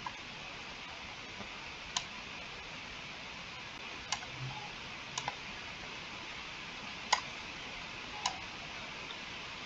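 Computer mouse clicking: single short, sharp clicks a second or two apart, one of them a quick double click, over a steady hiss.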